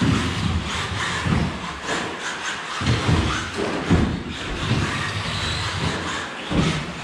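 Electric 1/10-scale RC rally cars running on an indoor astroturf track against a noisy background, with several dull thumps and knocks, the loudest about four seconds in.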